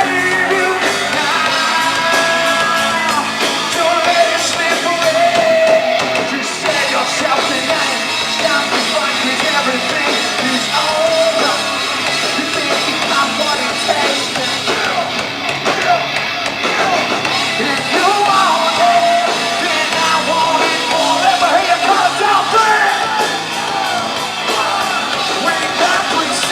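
A rock band playing live, loud and without a break, with the lead singer singing and yelling over the band.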